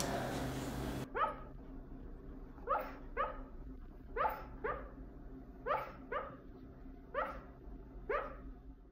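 Small black-and-white dog giving about ten short, high whines, each rising sharply in pitch, mostly in pairs about half a second apart, starting about a second in.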